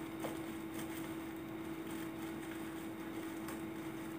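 Faint crinkling and scattered clicks of plastic bubble wrap and tape being pulled off a wrapped parcel by hand, over a steady low hum.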